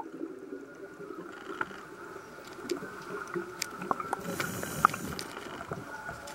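Underwater pool ambience heard through a submerged camera: a faint steady hum with scattered small clicks.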